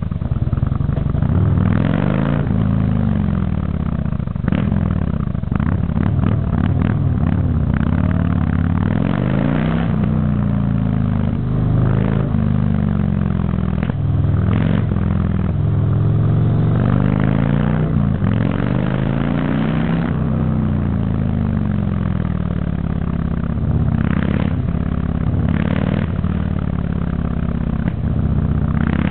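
Motorcycle engine heard on board, revving up and easing off again and again through tight bends, its pitch rising and falling, with gusts of wind noise over the microphone.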